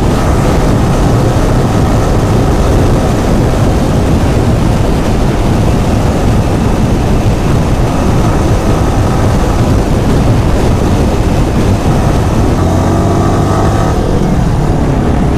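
Motorcycle being ridden at speed: steady, loud wind noise on the microphone over the running engine, with the engine pitch shifting up and down near the end.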